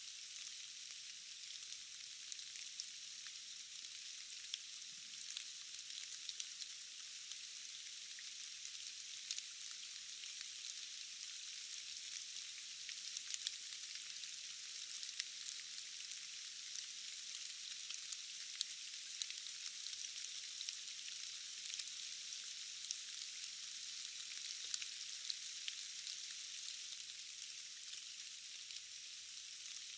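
Steady rain falling in a forest: a high, even hiss with many small ticks of single drops scattered through it, and no low rumble.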